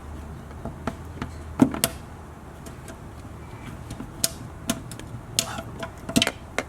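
Irregular sharp clicks and knocks of plastic and metal parts handled as the old HID fog-light bulbs and their connectors are twisted out and unplugged, over a faint steady low hum.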